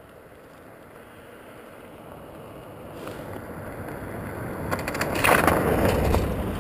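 A car driving past on a gravel road: its engine and tyre noise grow steadily as it approaches and peak as it passes close, about five seconds in, with crackling from the tyres on the gravel.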